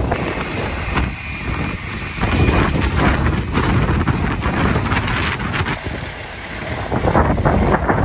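Gusty wind buffeting the microphone, a loud low rumbling noise that swells and eases with the gusts and drops briefly about six seconds in.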